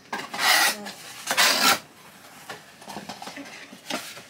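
Cardboard scraping and rubbing as pieces of a shipping box are pulled apart and out by hand: two loud scrapes about a second apart, then lighter rustling and taps.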